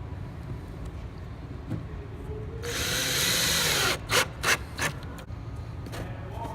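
Power drill driving a screw, most likely fastening a wire clip, running for about a second and then given three short pulses to seat it.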